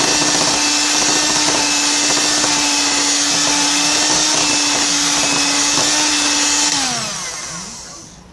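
Electric hand mixer running steadily with its beaters in pancake batter. About seven seconds in it is switched off and its motor whine falls in pitch as it winds down.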